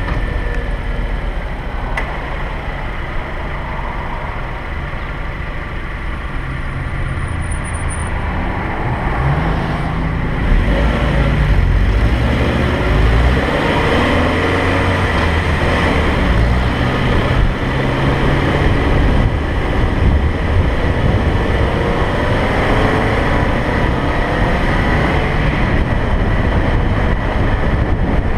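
A car driving on a road: steady engine and tyre noise, getting louder about ten seconds in.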